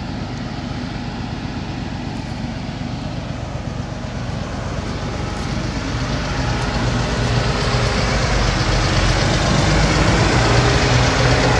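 Tractor engines and a tractor-mounted forage harvester running steadily in a cornfield harvest, a low engine hum under a steady hiss. The engine sound grows steadily louder as a tractor towing a silage wagon comes close.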